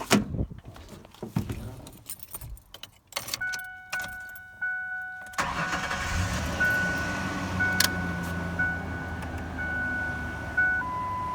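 A 2000 Ford Ranger being started: keys and clicks, then the dashboard warning chime beeping steadily from about three seconds in. About five seconds in the engine starts and settles into a steady idle, with the chime still sounding over it.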